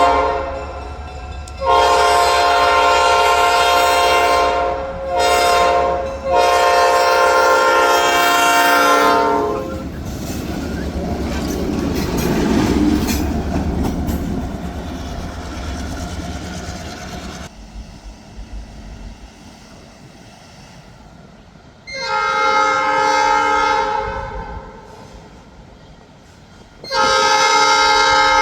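Diesel locomotive air horn on an Escanaba & Lake Superior SD9, several notes sounding together, blowing the grade-crossing pattern: the tail of a long blast, then long, short, long. The train then rumbles past with wheel clatter on the rails, and the horn sounds again twice near the end.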